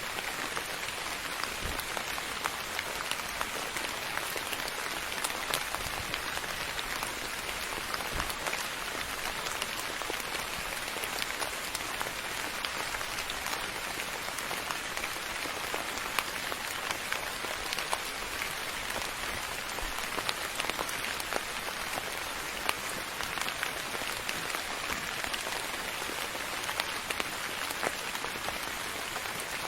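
Steady rain falling on a hard surface, an even hiss with many separate drops ticking through it.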